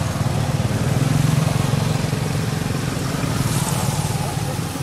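A motor vehicle engine running steadily nearby, a low rumble that swells about a second in and then eases off.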